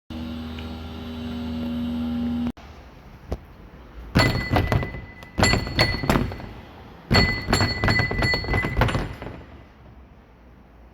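A short stretch of intro music that cuts off abruptly, then three bursts of rapid metallic clattering with a ringing note, each a run of knocks lasting about a second. The clatter comes from a metal oil filter wrench left loose in the engine bay after a service.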